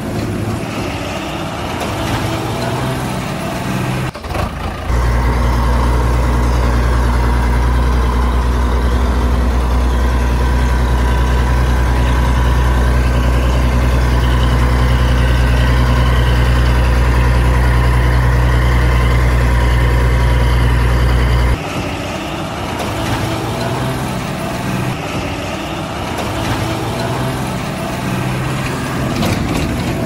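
Heavy truck engine running at a steady idle. About five seconds in, a deeper, louder rumble starts suddenly, and it cuts off after about twenty-one seconds, leaving the lighter engine sound.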